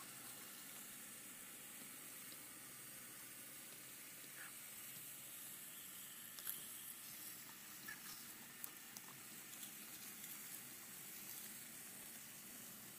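Faint steady hiss from an onboard camera riding a moving N scale model train, with a few small clicks between about six and nine seconds in as the train rolls over the track.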